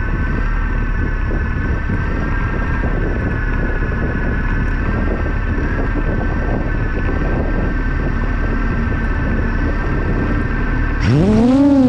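FPV quadcopter's motors running with a steady high whine over a low rumble, then throttled up sharply near the end, the pitch sweeping up and settling as the quad lifts off.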